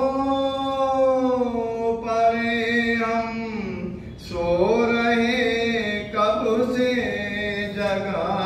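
A man singing a Hindi devotional bhajan as a solo voice, holding long drawn-out notes that bend gently in pitch, in three phrases with short breaks about four and six seconds in.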